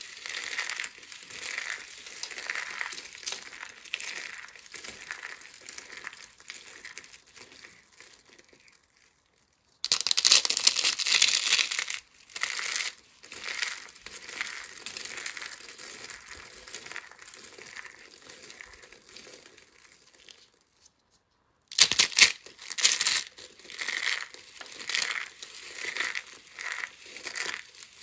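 Curled soap shavings of a soap rose crinkling and crunching as hands squeeze and crumble them into flakes. The crunching comes as a steady crackle, broken twice by a short silence, and each silence is followed by a louder burst.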